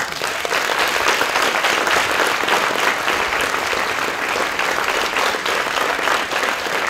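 An audience applauding steadily, a dense sustained clapping from a full hall.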